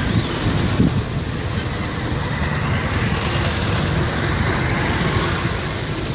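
A column of vintage military vehicles driving past with their engines running: open-top GAZ-69 jeeps and sidecar motorcycles, a steady low rumble with a short low thump or two near the start.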